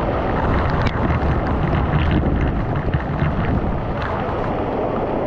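Waterfall crashing down right at the camera: a steady, heavy rush of falling water, with many small splashes of drops striking the microphone.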